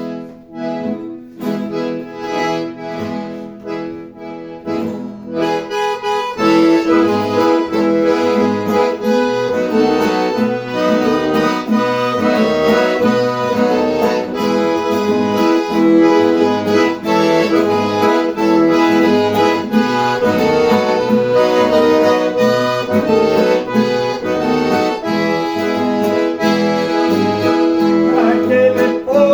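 Accordion (gaita) playing a hymn tune: held chords for about the first six seconds, then a steady rhythmic bass accompaniment under the melody.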